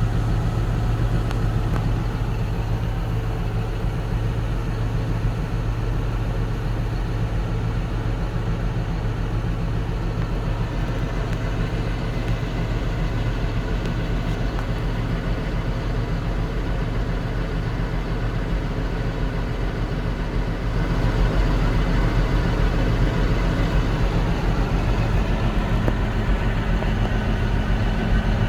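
Heavy farm machinery's engine running steadily with a deep, even hum, growing louder and fuller about three quarters of the way through.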